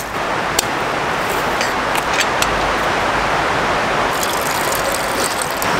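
Steady rushing of a mountain river, with a few faint clicks.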